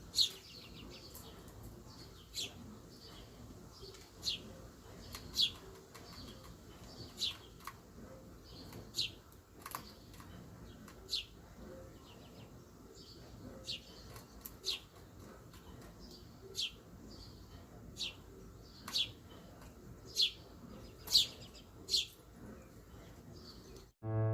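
Small birds chirping: short, sharp, high calls that slide downward, repeated about once every second or so. Piano music starts right at the end.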